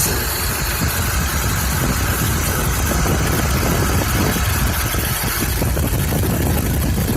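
2012 Nissan Maxima's 3.5-litre V6 idling steadily in the open engine bay, with the AC compressor engaged. The compressor has been switched on by a potentiometer standing in for the pressure transducer, which shows that the wrong transducer was the fault.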